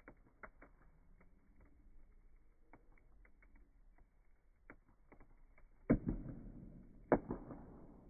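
Wood fire in a metal fire basket crackling, with scattered small snaps throughout. Two loud pops about a second apart near the end each trail off over about half a second.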